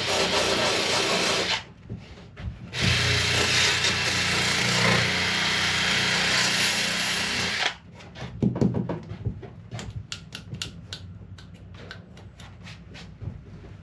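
Electric drill spinning a wire wheel brush against a plastic kayak hull to clean off dirt. It runs in two long bursts, cutting out briefly about one and a half seconds in and stopping for good near eight seconds, followed by scattered short clicks and scrapes.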